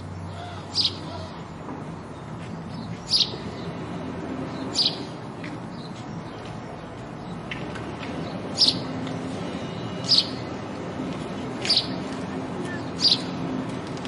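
House sparrow chirping: seven single, sharp chirps spaced one to two and a half seconds apart, over a steady low background noise.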